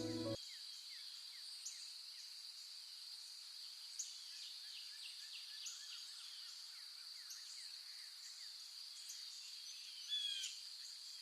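Rainforest ambience: a steady, high insect drone with many short falling chirps scattered through it. One louder call stands out about ten seconds in.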